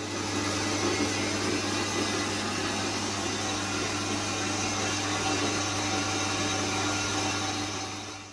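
A steady machine noise, such as an electric motor or power tool running, with a constant low hum under an even hiss. It starts and cuts off abruptly.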